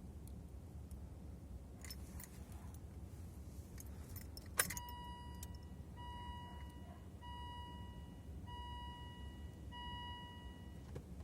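Car keys jingling, then a sharp click about four and a half seconds in. After the click, the 2001 Volvo S60's dashboard warning chime sounds five times in a row, one steady tone about every 1.3 seconds, and stops near the end.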